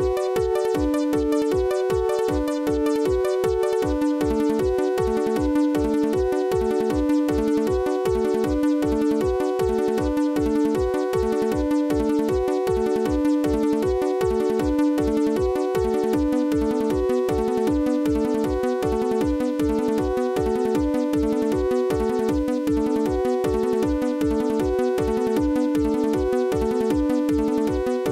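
Music with a steady, even drum beat and a repeating melody of held notes.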